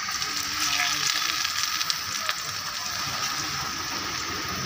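Potato-dough balls deep-frying in hot oil, sizzling steadily with a few sharp pops.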